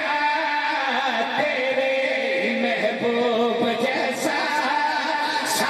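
A man singing a qasida, a devotional poem, through a microphone and PA, one voice drawing out long held notes that waver and bend in melody.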